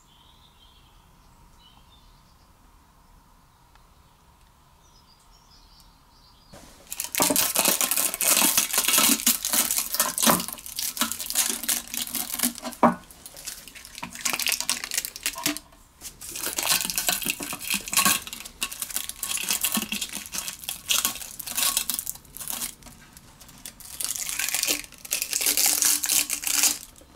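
Harsh abrasive scrubbing on a carburettor or fuel-tank part during its cleaning, in long scratchy bursts with short pauses, starting about a quarter of the way in. Faint bird chirps are heard in the quiet before it starts.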